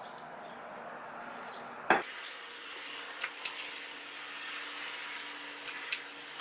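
Glued purpleheart and maple strips handled on a wooden workbench: one sharp knock about two seconds in, then a scatter of small clicks and taps as the stack is pressed together and bound with tape, over a faint steady hum.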